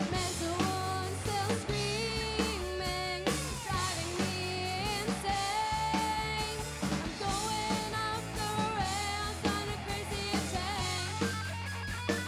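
Live rock band playing: young female vocals singing a melody over drum kit and band accompaniment with a steady low bass line.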